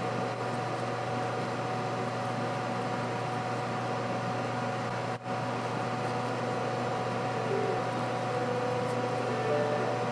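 A steady mechanical hum with a low drone and a faint steady tone above it, dropping out for an instant about halfway through.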